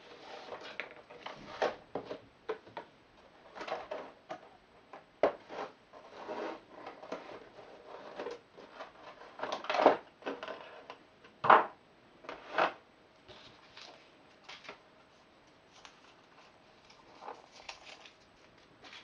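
A small cardboard game box being opened and its contents handled: rustling of card and plastic wrapping with scattered clicks and knocks, the loudest a few sharp knocks about ten to twelve seconds in as a plastic miniatures tray is lifted out.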